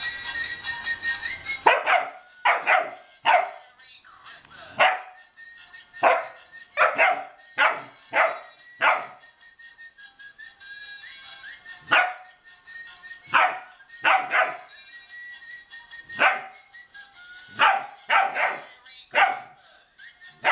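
German shepherd puppy barking, about twenty short barks in bunches of two to five with pauses between them. A musical Santa Claus toy plays an electronic tune loudly for the first couple of seconds, which then stops, leaving faint tones under the barks.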